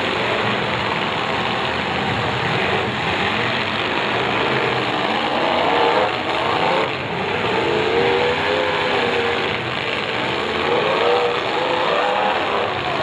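Several demolition derby cars' engines running loud at once, revving up and down as the cars drive and ram each other.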